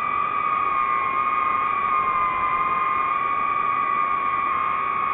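DJI FPV drone's motors and propellers whining steadily in flight, the pitch dipping slightly a couple of seconds in.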